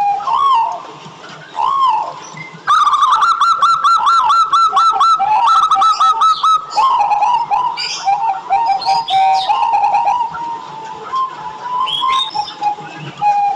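Zebra dove (perkutut) cooing: arched coo notes with a fast rapid-fire run of short notes from about three to seven seconds in.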